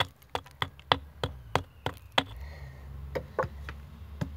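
Sharp, evenly spaced knocks, about three a second, as a cutting piece is beaten down into the top end of a wooden spear shaft to split it for a stone point. The knocking stops about two seconds in, followed by a few softer knocks and handling noise.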